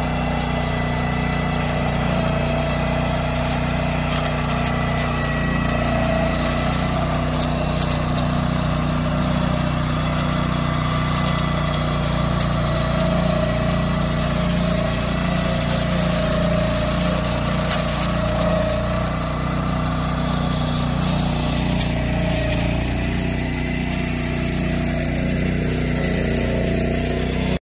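Walk-behind two-wheel tractor with a front flail mower, its small single-cylinder petrol engine running steadily under load as it cuts through tall grass.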